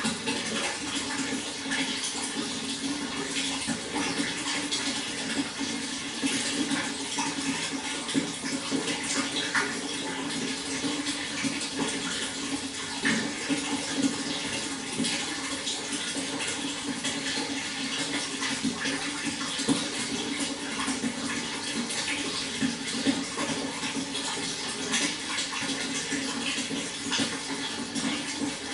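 Water flowing steadily, with a constant dense splashing and gurgling that never pauses.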